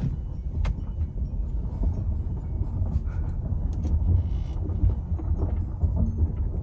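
Honda car driving off in Drive: a steady low engine and road rumble, with scattered small clicks and rattles over it.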